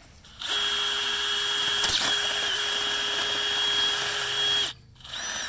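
Cordless drill turning a twist bit into a steel gate post: a steady motor whine for about four seconds, with a brief dip in pitch about halfway through. Near the end the drill spins up briefly once more.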